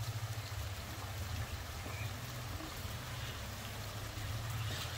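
Rain falling steadily, an even hiss, with a steady low rumble beneath it.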